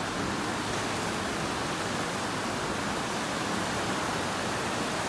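Steady rush of flowing river water, an even hiss with no rise or fall.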